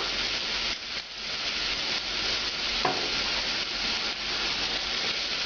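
Mirepoix of carrots, celery and onion with tomato sauce and garlic sizzling steadily in a hot saucepan while the added sherry cooks off and the pan goes dry.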